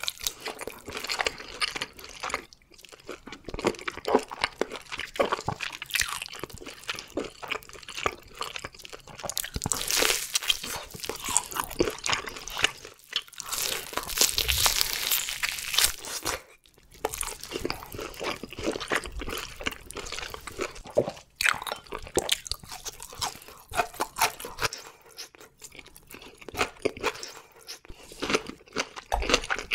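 Close-miked mouth sounds of biting into, tearing at and chewing a seared bone-in tomahawk beef steak, wet and smacking, with a louder stretch of biting about halfway through.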